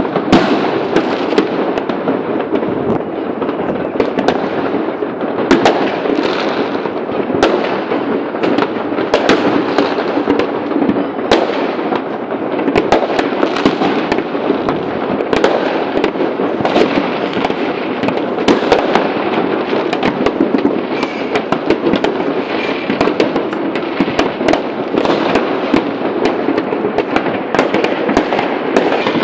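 Many fireworks and firecrackers going off at once: a continuous din of crackling and popping, with frequent sharper bangs at irregular intervals throughout.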